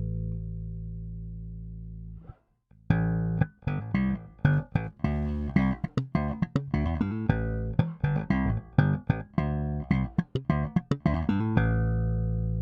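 Fender Japan Jaguar Bass played clean, recorded direct through a preamp. A low held note fades out and is muted, then comes a quick run of plucked notes, ending on a long ringing low note.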